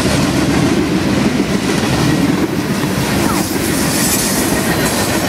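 Freight cars of a garbage train rolling steadily past, a loud continuous rumble and rattle of steel wheels on the rails, with a faint brief squeal about three seconds in.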